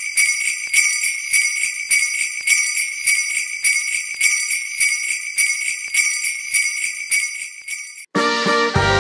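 Jingle bells shaken in a steady beat. A little after eight seconds in they stop abruptly, and a military brass band starts playing a Christmas carol.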